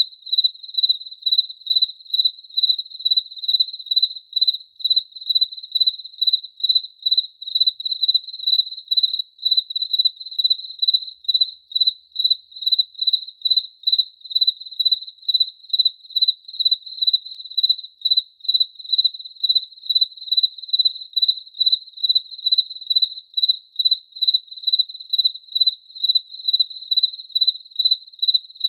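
A cricket chirping steadily in an even rhythm, about two to three chirps a second, each chirp a single high, pure tone.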